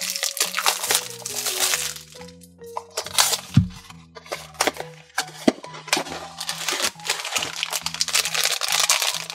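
Plastic shrink wrap crinkling and tearing off a small cardboard blind box, with a thump about three and a half seconds in as the box is opened, then a black plastic bag crinkling near the end. Background music plays throughout.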